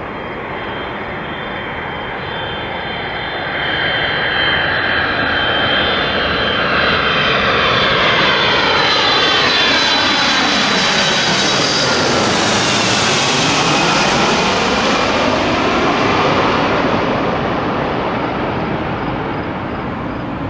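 Twin-engine jet airliner passing low overhead on final approach with its landing gear down. The engine noise builds with a high steady whine, is loudest a little past halfway with a sweeping change in tone as it goes over, then fades as it moves away.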